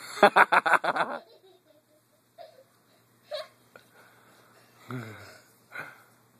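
A person laughing: a loud burst of about eight quick ha's in the first second, then a few short, quieter voice sounds.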